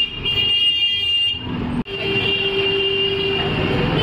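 Busy street traffic with vehicle horns sounding in long, steady honks. There is a sudden brief break a little under two seconds in.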